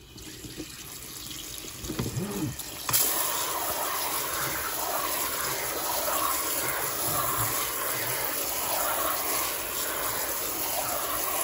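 Kitchen faucet running cold water onto cooked jumbo pasta shells in a stainless steel colander in the sink. The flow builds over the first few seconds, steps up about three seconds in, and then runs steadily.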